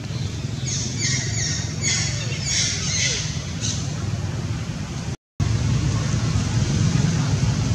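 A series of about half a dozen short, high, harsh squawking calls over about three seconds, over a steady low rumble. The sound cuts out completely for a moment about five seconds in.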